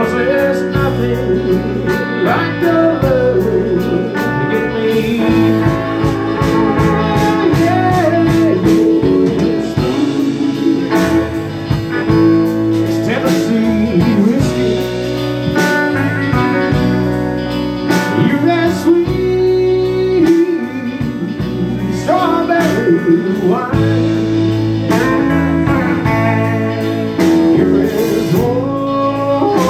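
Live band playing amplified blues-style music on electric guitars, electric bass and drum kit, with a lead line that bends in pitch.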